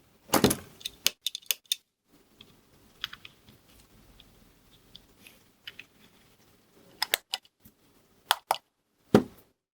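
Scattered clicks and light knocks of a NUX Drive Core overdrive pedal being handled and reassembled, with a louder knock about half a second in and a quick run of clicks near the end.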